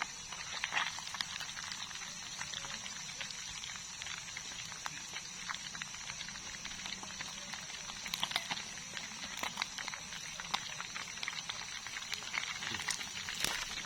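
Steady high-pitched drone of night insects, with scattered crackling clicks throughout.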